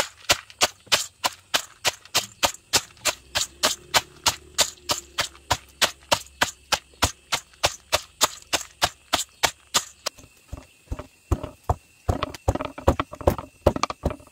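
Wooden pestle pounding peanuts in a stainless steel bowl, about three strokes a second, each a sharp knock. From about ten seconds in the strokes turn duller and softer-edged as the peanuts are crushed to a powder.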